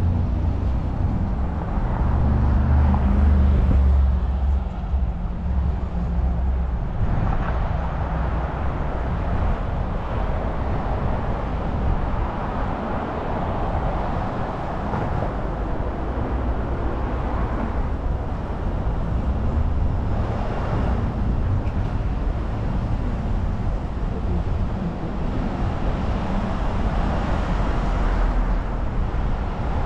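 City street traffic: cars and other motor vehicles passing, engines and tyre noise, over a steady low rumble.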